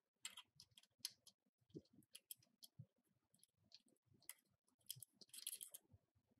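Faint small metal clicks and light scraping as nuts and washers are handled and spun onto the motor's mounting bolts by hand, with a denser scrape about five seconds in.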